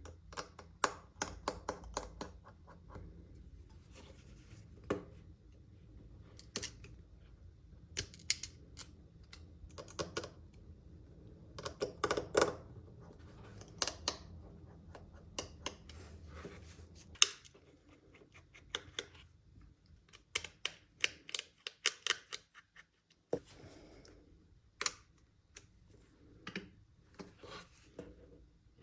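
Small tools and parts of a first-generation iPhone SE clicking, tapping and scraping as the phone is taken apart. Sharp clicks come in quick clusters with short scratches between them.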